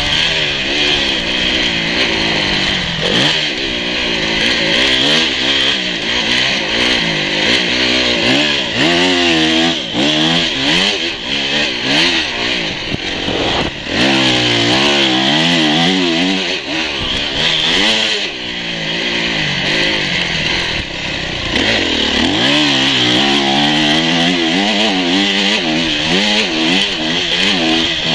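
Dirt bike engine being ridden on a motocross track, its revs rising and falling constantly with the throttle, under a steady rush of wind noise on the helmet microphone.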